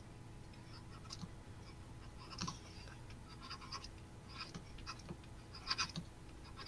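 Faint scratching and tapping of a stylus on a tablet as figures and units are handwritten: a handful of short, scratchy strokes and ticks spread through, over a low steady hum.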